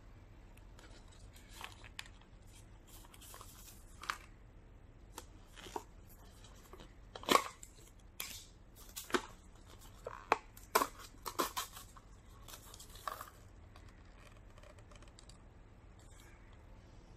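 Popcorn canister being handled and opened: scattered taps and rubs on the tube, then a cluster of sharp snaps and short tearing, crinkling rips in the middle as the lid and seal come off.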